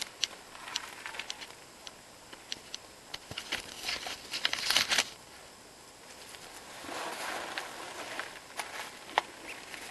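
Footsteps crunching and scuffing over dry leaves, twigs and grit, with scattered sharp clicks. The loudest crunching comes about four to five seconds in, with another patch near the end.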